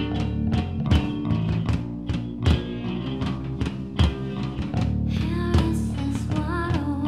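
Live rock band playing: distorted electric guitar and bass over drums hit about twice a second, with a singing voice coming in about five seconds in.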